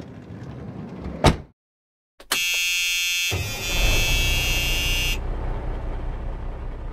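Intro title sound effects: a short swoosh ending in a sharp click. After a brief pause comes a loud buzzer-like tone, joined about a second later by a rumbling noise that outlasts the tone and slowly fades.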